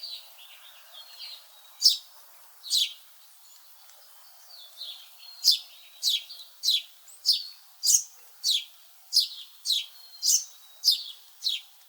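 Songbird singing: high, steeply falling chirps, a few scattered at first, then repeated about twice a second through the second half, over a faint steady background hiss.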